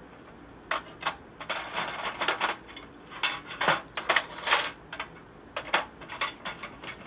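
Metal hand tools clinking and clattering as they are handled and set down: an irregular series of sharp knocks and clinks.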